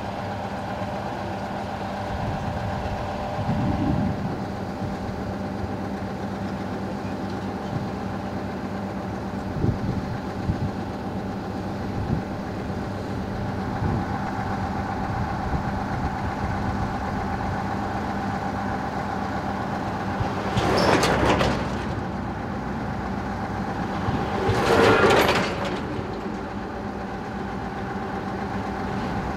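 Diesel engine of a truck-mounted crane idling steadily, with a few light knocks early on. Two louder, rushing bursts of noise come about four seconds apart, each lasting a second or two.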